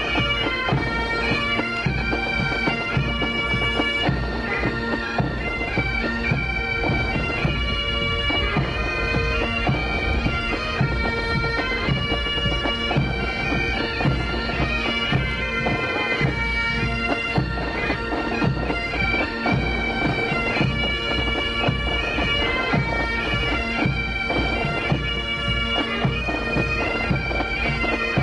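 Pipe band of Great Highland bagpipes and drums playing a march. A steady drone runs under the changing chanter melody, with a continuous drum beat beneath.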